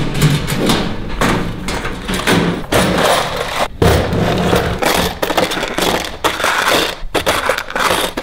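Hands rummaging through workshop parts in search of nuts: a busy clatter of knocks, scrapes and rattles, with a heavier thump about four seconds in.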